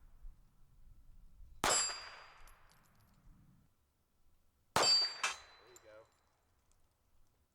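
Three gunshots, the last two about half a second apart. The first two are followed by a brief high metallic ring, typical of steel targets being hit.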